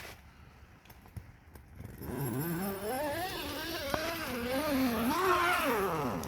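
An engine drones from about two seconds in, its pitch climbing and wavering, then falling away near the end.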